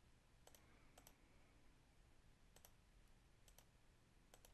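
Faint clicks of a computer mouse, five in all and most in quick double pairs, as drawings are selected and deleted on a charting screen; otherwise near silence.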